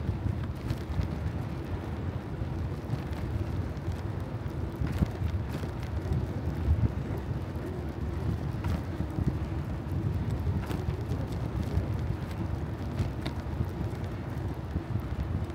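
Wind buffeting the microphone of a bicycle-mounted or handheld camera while cycling, a steady low rumble. A few faint clicks are scattered through it.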